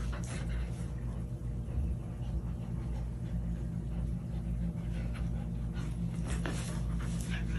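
Siberian husky nibbling and licking at its own fur, with soft mouth clicks that come thicker near the end. A steady low hum runs underneath.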